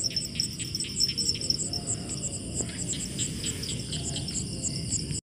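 Crickets chirping at night: a steady run of high, rapidly repeated chirps over a low, even background noise, breaking off suddenly near the end.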